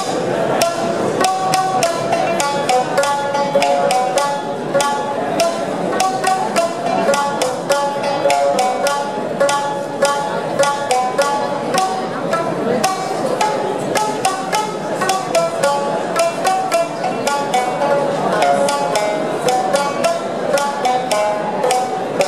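Two Tsugaru shamisen played together in a fast, driving duet: the bachi strikes the strings and skin in rapid, percussive strokes, with ringing plucked notes over them.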